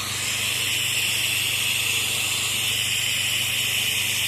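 Pressure washer at work: the machine's engine running with a steady hum under the even hiss of the water jet spraying, during the final rinse of a house wash.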